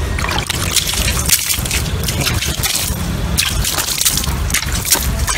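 Water splashing as it is scooped from a plastic bucket and poured onto raw clay in a pit, wetting it to prepare it for pottery. The splashes come irregularly, several short strokes a second apart.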